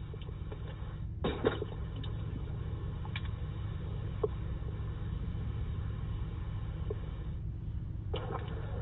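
Steady low hum with a faint background hiss, broken by a few faint ticks, one about a second in.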